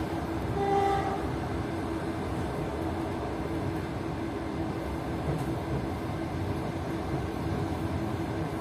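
A train running, with a steady rumble of the wheels on the rails and a faint steady hum. A short pitched tone sounds briefly about a second in.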